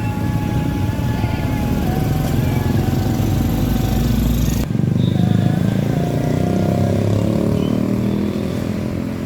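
Road traffic with a heavy truck's diesel engine running close by. After an abrupt change about halfway through, an engine's pitch climbs steadily as it accelerates.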